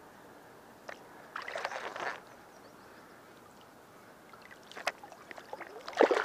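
Water splashing as a bowfishing arrow trailing water weed is hauled back up out of the shallows by its line, in two short bursts: about a second in and again near the end. A couple of sharp clicks come in between.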